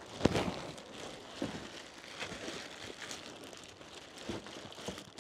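Clear plastic wrapping around a golf cart bag crinkling and rustling in irregular crackles as the wrapped bag is handled and lowered into a cardboard box.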